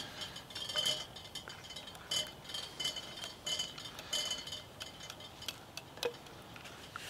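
Metal spoon stirring instant hot chocolate powder into hot water in a plastic camping cup, clinking against the cup's sides in irregular short taps.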